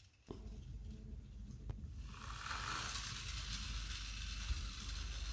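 LEGO Technic flywheel car rolling on a wooden floor: its plastic gear train and flywheel spinning with a steady mechanical noise. The noise starts with a click a moment in and turns louder and hissier about two seconds in.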